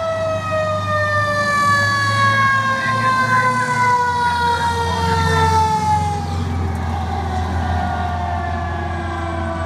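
Fire truck siren giving one long wail that winds slowly and steadily down in pitch, like a mechanical siren coasting, over the low rumble of the truck's engine as it drives past.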